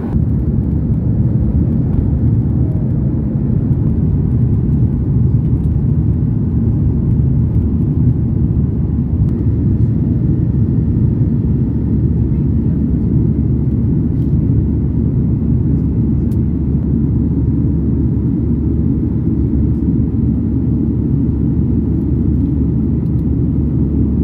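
Steady low rumble of a Boeing 737 airliner's jet engines and airflow heard inside the cabin in flight, seated over the wing.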